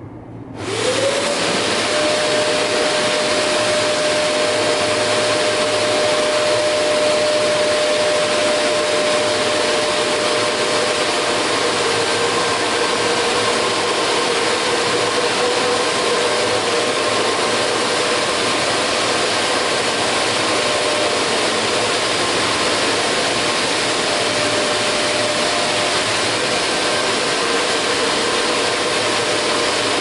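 Vacuum cleaner switching on about half a second in, its motor whine rising quickly to a steady pitch, then running steadily with a loud rush of air through the hose.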